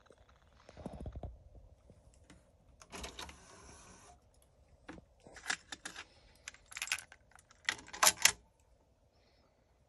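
Denon UDR-F10 cassette deck: a low thump about a second in, then the cassette door opening with a steady whir lasting about a second. After that come sharp plastic clicks and clatters as a cassette is set into the holder, loudest near the end.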